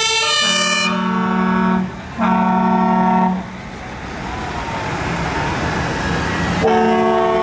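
Fire service vehicles sounding their horns as they drive past: two long horn blasts, then a heavy fire truck's engine and tyres passing, and another long blast near the end. A siren cuts off at the very start.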